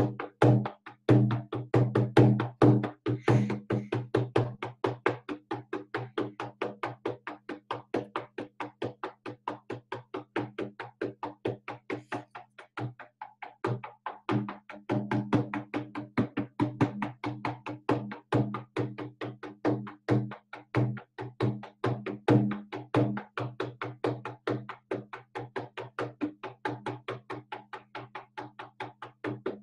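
Large hand-held frame drum with a painted hide head, struck with a beater in a fast, even beat for a shamanic drumming journey; each stroke rings at a low pitch. The beat falters briefly about halfway through.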